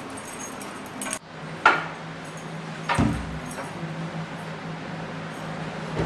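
Handling sounds in a quiet room: a sharp clink about one and a half seconds in, then dull thumps about three seconds in and again at the end, over a faint steady hum. The background noise cuts off abruptly about a second in.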